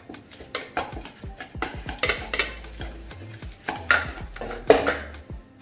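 Utensils scraping and clinking against a stainless steel bowl as lettuce is tossed with vinaigrette, in an irregular run of clicks and scrapes.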